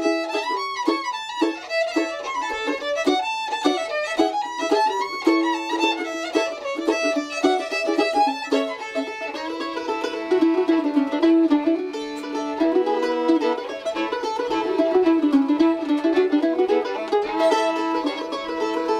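Fiddle and mandolin playing a tune together: the fiddle bows the melody while the mandolin picks along.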